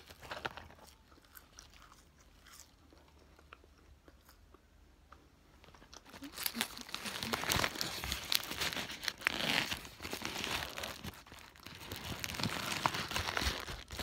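Faint chewing, then from about six seconds in loud crinkling and crackling of a foil-lined sandwich wrapper being handled and unfolded.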